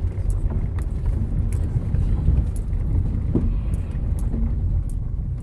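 Steady low rumble of a van's engine and road noise heard from inside the vehicle while driving, with scattered faint clicks.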